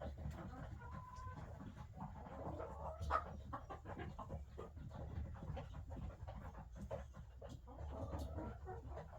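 Faint clucking and short soft calls from a flock of chickens, with scattered small clicks and rustling.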